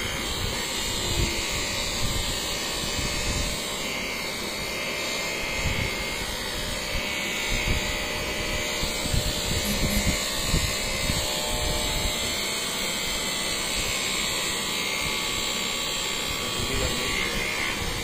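Corded handheld electric massager running steadily with a constant motor noise while pressed against a person's back, with uneven low thuds as it moves.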